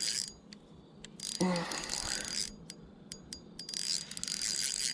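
Fishing reel being cranked in three spurts of whirring while a hooked fish is reeled in, with sharp single clicks from the reel between the spurts.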